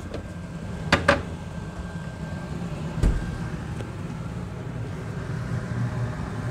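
A kitchen cupboard door closing with a quick double knock about a second in, then a dull low thump near the middle, over a steady low background hum.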